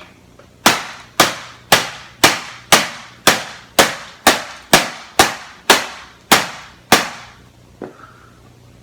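A hammer striking a printer, thirteen sharp blows about two a second, then one lighter knock.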